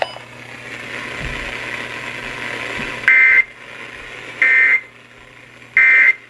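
Three short shrill bursts of Emergency Alert System data tones over steady radio hiss, each under half a second long and about 1.3 s apart: the end-of-message code that closes the Amber Alert broadcast.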